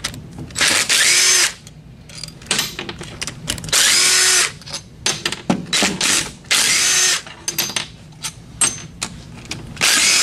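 Cordless drill spinning 10 mm bolts out of a transmission case in short runs of under a second: three times, with a fourth starting at the end. Each run starts with a rising whine. Between the runs come sharp metal clicks as bolts and the socket are handled.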